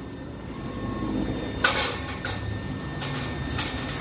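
Steady low background rumble with a few short clicks and scrapes, starting about one and a half seconds in.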